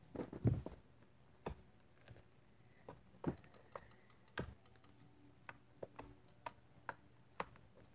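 Faint, irregular light clicks and taps of fingers and fingernails on a small plastic slime container as its lid is worked open, roughly one or two a second.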